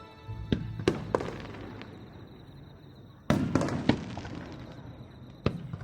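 Aerial fireworks shells bursting. A quick run of three sharp bangs about half a second in, the loudest burst about three seconds in with a rolling echo, and another bang near the end.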